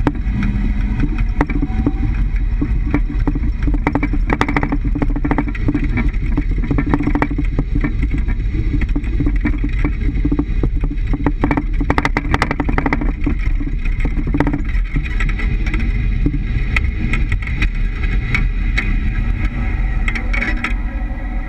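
Underbody road rumble of a 3-inch-lowered Toyota Hiace van driving, heard from beside the rear leaf spring, with repeated sharp knocks and clicks that come in clusters. The knocking is the rear bump stop striking, because the lowering blocks leave too little suspension travel, together with leaf spring noise.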